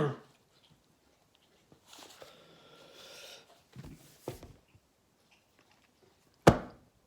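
A man coughing after spicy noodle broth went down his throat the wrong way. One cough ends right at the start, then comes a faint strained breath, a couple of small knocks, and another sharp cough about six and a half seconds in.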